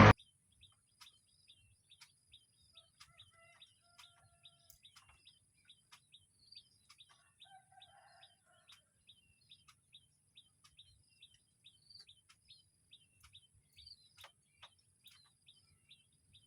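Faint birds chirping: a short high chirp repeated about twice a second, with a few lower calls now and then and scattered faint clicks.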